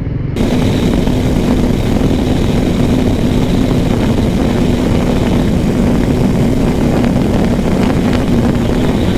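Motorcycle engine running at steady revs while riding, with heavy wind rush, starting suddenly about half a second in.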